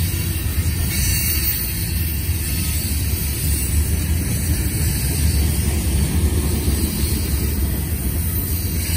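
Freight train cars rolling past on the rails: a steady low rumble with a constant hiss over it.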